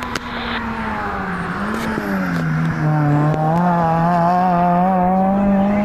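A rally car's engine approaching and passing close. Its note dips about two seconds in, then the engine gets louder and its pitch climbs steadily as the car accelerates past.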